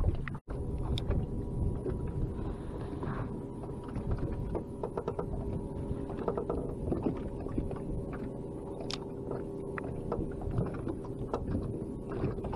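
Wind and small waves lapping against a small fishing boat's hull, with scattered light knocks and a faint steady hum.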